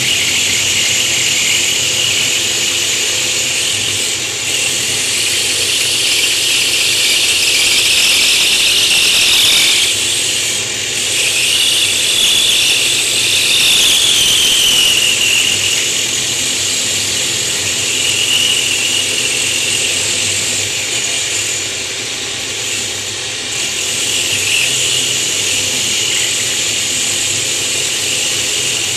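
A power tool spinning a diamond bit, grinding a recess into the back of a natural stone tile. It makes a continuous high-pitched grinding squeal whose pitch wavers as the stone is worked back and forth.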